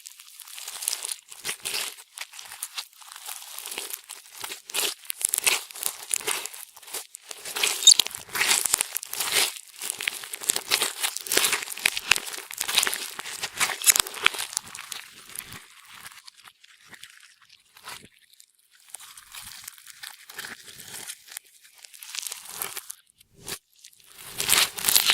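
Clear slime being kneaded and pressed by hand, giving off dense runs of sharp crackling and popping clicks. The clicks ease off for a few seconds past the middle and pick up again near the end.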